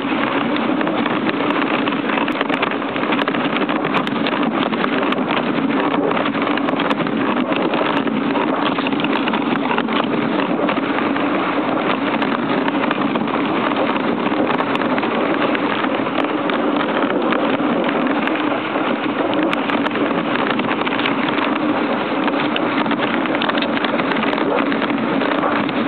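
Steady rushing noise of a husky-drawn dog sled gliding over packed snow: the runners hissing on the snow, with wind on the microphone.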